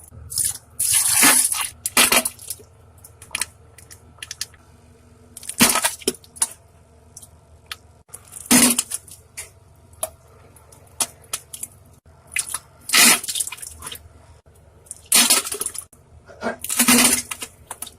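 Diarrhea fart sounds: a series of loud, wet, sputtering bursts a few seconds apart, with smaller crackling splats between them.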